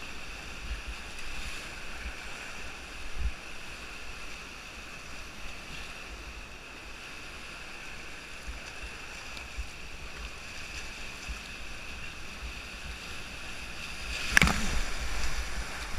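Whitewater rapids rushing steadily around a kayak, heard from a GoPro on its bow, with low bumps of water and wind against the camera. Near the end a wave breaks over the bow with a loud splash.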